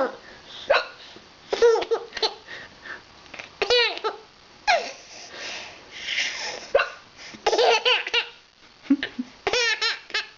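An adult hiccuping again and again, with a baby laughing in short bursts in answer to the hiccups.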